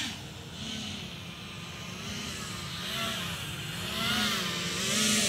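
FPV quadcopter's motors and propellers whining, the pitch rising and falling with the throttle as it flies in. It grows louder towards the end as the drone nears.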